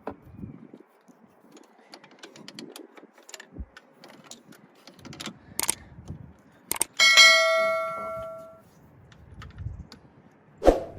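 Hand tools clicking and knocking on metal parts in an engine bay, with one loud metallic clang about seven seconds in that rings for over a second, then a sharp knock near the end.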